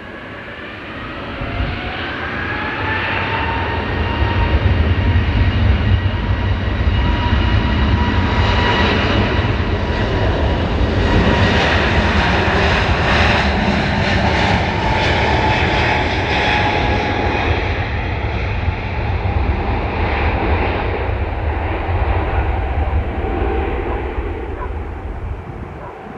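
Jet airliner engines passing close by: a heavy rumble with a whine, building over the first few seconds, strongest through the middle and fading away near the end.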